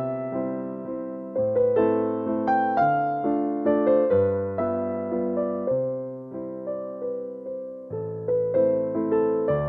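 Background music: a slow keyboard jingle in an electric-piano sound, with a melody of struck, fading notes over lower bass notes that change about every second.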